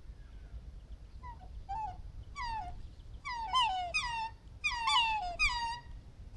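A mated pair of black swans calling back and forth in their greeting duet: a run of high calls, each falling in pitch, starting about a second in and growing louder, the two birds' calls overlapping in the second half.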